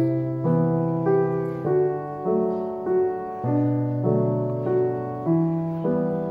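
Background piano music: gentle notes and chords struck at a slow, even pace, with a new note or chord about every half second or so.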